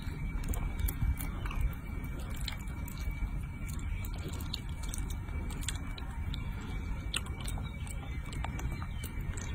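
Baby macaque chewing and smacking on soft roasted sweet potato: scattered small clicks over a steady low rumble.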